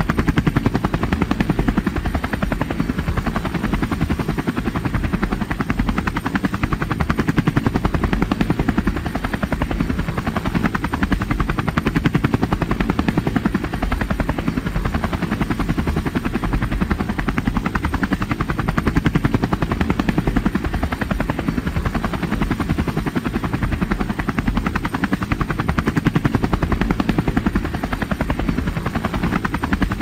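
Helicopter in flight: a steady, rapid chop of rotor blades, heaviest in the low end, holding an even loudness.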